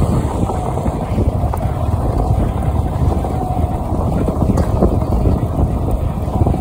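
Yamaha R15 V3's single-cylinder engine running at low revs in fourth gear as the bike slows on a dirt track, with wind buffeting the microphone.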